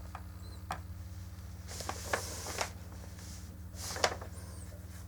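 Small plastic model-kit parts being handled and pressed together: a few light clicks and two brief rustles, over a steady low hum.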